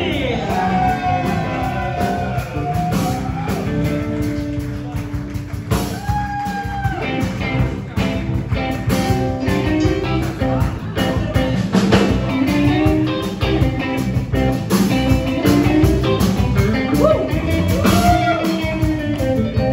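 A live rock band plays, with an electric guitar lead of sustained, bent notes over steady drums and bass.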